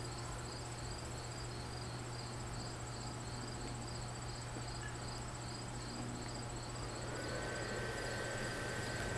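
Insects chirping in a rapid, even rhythm over a low steady hum. About seven seconds in, the inflatable's blower fan starts: a whine that rises and then holds steady over a rush of air, as the Tow Mater inflatable begins to fill.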